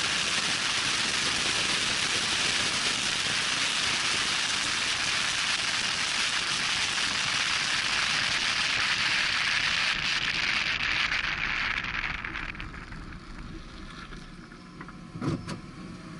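Loud wind noise rushing over the microphone from a pickup truck driving fast on a dirt trail. About twelve seconds in it dies down to a quieter low rumble, with a couple of sharp knocks near the end.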